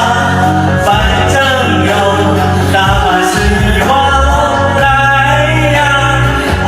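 Loud music with singing: a voice sings a wavering melody over a steady bass line.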